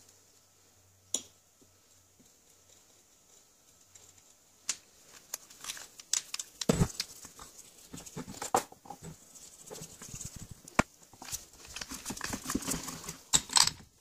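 A stiff hand brush scrubbing grime off the steel bevel gear and screw of an old screw bottle jack, in irregular scratchy strokes, mixed with clicks and knocks of the metal parts being handled. The first few seconds are nearly quiet apart from one sharp click about a second in.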